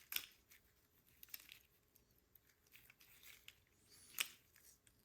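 Near silence with a few faint clicks and taps of small metal carburetor parts being handled and fitted, the loudest a little after four seconds in.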